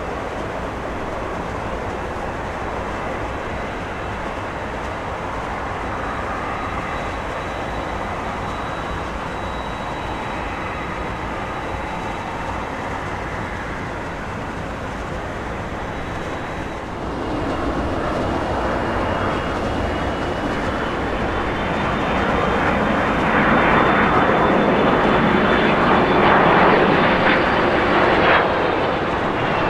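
Airbus A330-300 jet engines (Pratt & Whitney PW4000 turbofans) running with a steady roar. After a cut about 17 s in, a second A330's engines come in louder, with a high whine, and grow louder still toward the end.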